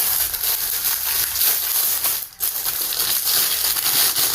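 Close rustling and handling noise as ring light parts and packaging are worked by hand: a dense, hissy crackle with a brief break about two seconds in.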